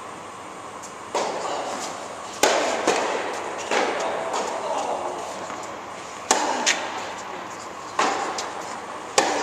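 Tennis ball being hit by a racket and bouncing on an indoor court: about eight sharp knocks at irregular intervals, each echoing round the hall.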